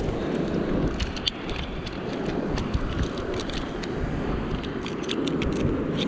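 Wind rumbling on the microphone over the wash of surf against a rock ledge, with many small sharp clicks and taps scattered through the middle.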